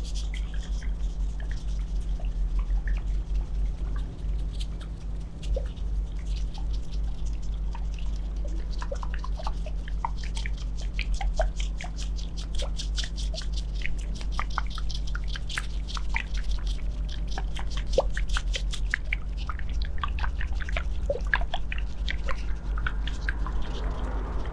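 Glass cryo facial globes pressed and moved over skin, making many quick soft clicks and sticky taps, densest through the middle stretch, over a steady low hum.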